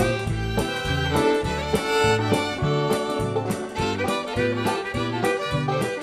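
Band music led by fiddle, with a steady walking bass line and a regular drum beat.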